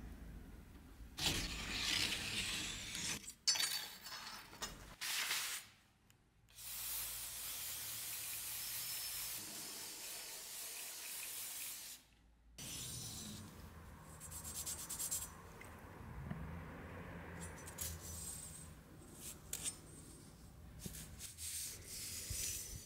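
Aerosol can spraying onto a rusty steel sword blade: a steady hiss lasting about five seconds, cutting off abruptly. Rubbing and handling noises of the blade come before and after it.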